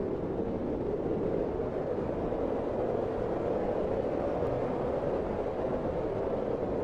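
Blizzard wind blowing steadily, a low, even rushing noise with no gusts or breaks.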